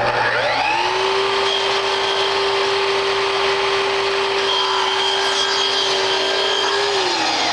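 Festool Kapex sliding miter saw spinning up, its blade running at a steady pitch as it cuts an outside-corner miter through a piece of crown molding; near the end the trigger is released and the motor winds down in pitch.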